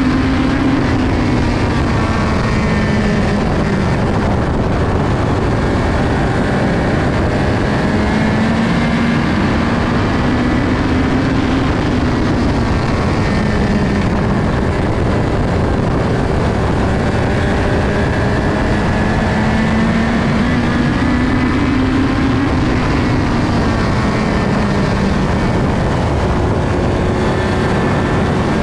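USAC midget race car's engine running hard under racing speed, heard onboard from the open cockpit. The engine note rises and falls in pitch in a slow cycle about every ten seconds.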